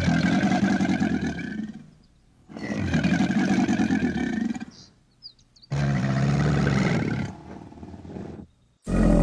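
Alligator bellowing: three long, low, rumbling bellows of about two seconds each, separated by short pauses, with a fourth beginning near the end.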